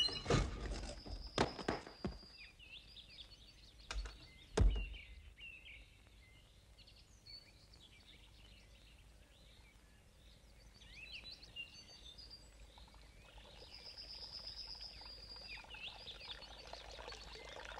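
Birdsong: many short chirps and a couple of held high whistles. In the first few seconds there are several dull thumps, the loudest about four and a half seconds in.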